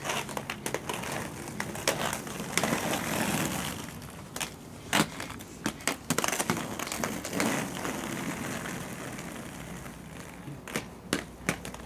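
Roller skate wheels rolling over rough pavement: a gritty rolling noise that swells and fades twice, scattered with clicks and knocks, a sharp one about five seconds in.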